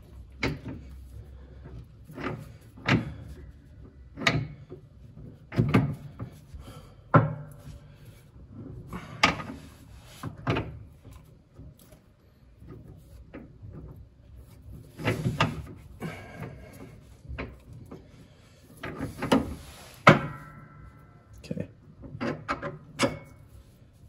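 Irregular metal clunks and knocks, with some scraping, as a lawn tractor's mid-PTO drive shaft coupler is pushed and twisted against the mower deck's splined input shaft. It will not seat because the splines are not lined up. One strike late on leaves a short metallic ring.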